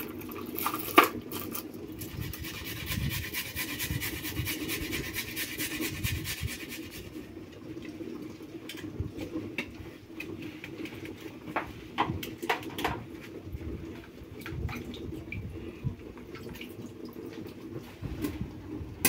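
Kitchen utensils at work as garlic is prepared: rapid, even tapping for about six seconds, then scattered separate knocks and clicks.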